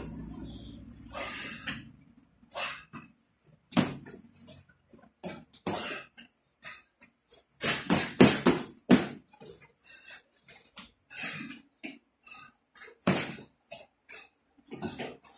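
Boxing gloves landing on a raised glove guard in irregular single punches and short combinations, with a quick flurry of hits a little past halfway, in a small room.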